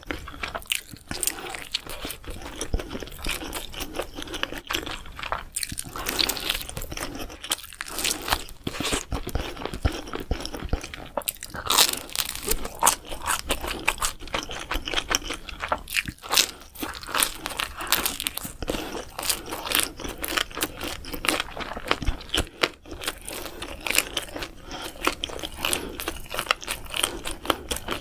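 Close-miked mukbang eating of mac and cheese pizza: dense crunching bites and chewing, with a constant crackle of sharp clicks.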